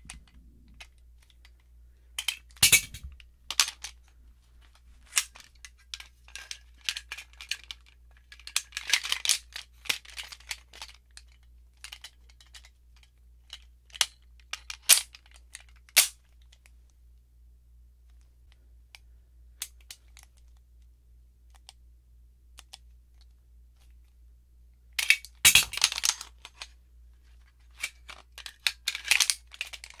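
Two Springfield Armory 1911 pistols handled, with sharp metal clicks and short rattles of slides, safeties and parts at irregular intervals. A few single clicks stand out, and the loudest cluster of clicks and rattles comes near the end.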